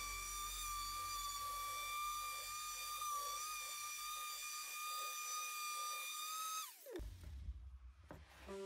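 DeWalt random orbital sander running against a white PVC board with a steady high whine. It is switched off near the end, its pitch falling as the motor spins down.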